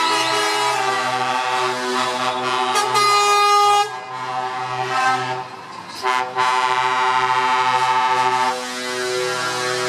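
Air horns of Scania tractor units sounding in long held blasts of several tones at once, over the trucks' diesel engines as they drive past. The horns break off about four seconds in, start again a couple of seconds later, then ease off near the end.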